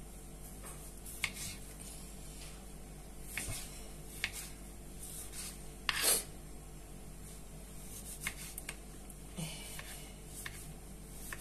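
Kitchen knife cutting small tomatoes on a plastic cutting board: scattered sharp taps of the blade on the board, with the loudest, a scrape, about six seconds in as the chopped pieces are swept across the board.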